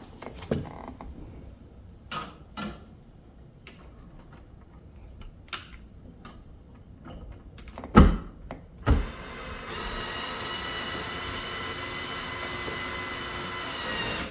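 Light clicks and knocks of handling, two loud knocks about eight and nine seconds in, then a power screwdriver or drill motor running steadily for about four and a half seconds, driving the screw that fixes the electrical switch box against the drywall.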